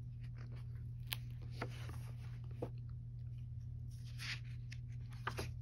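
Paperback colouring book being handled and opened: its cover and paper pages rustling, with a few light clicks, over a steady low hum.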